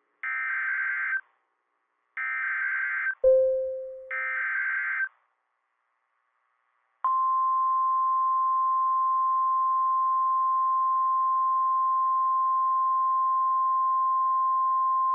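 Emergency Alert System header data bursts, three buzzy screeches about a second each, then after a short pause the steady NOAA Weather Radio 1050 Hz warning alarm tone held for about nine seconds. A short fading ping sounds after the second burst and again as the alarm tone ends.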